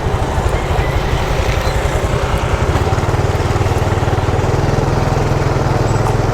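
Small motorcycle engine running at a steady speed while riding, with wind and road noise.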